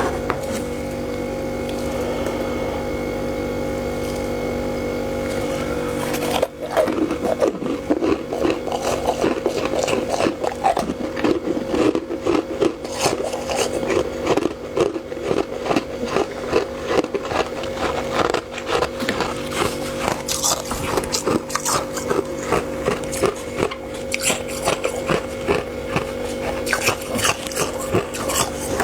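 A steady hum, then, about six seconds in, fluffy freezer frost crunching in rapid crackles as it is bitten and chewed, over the continuing hum.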